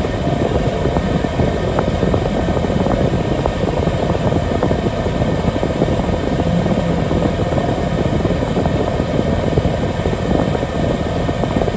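Steady, loud engine drone heard from inside a vehicle cab, with no change in pitch.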